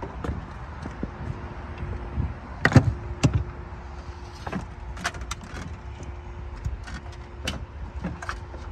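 Scattered clicks and knocks of a camera wire being pulled through a car's interior trim, the loudest a little under three seconds in. A faint steady hum starts about a second in.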